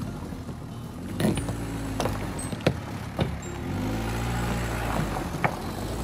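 SsangYong Rexton Sports pickup's diesel engine pulling up a rocky gravel slope, its note rising and falling, with sharp cracks of stones popping and crunching under the tyres several times.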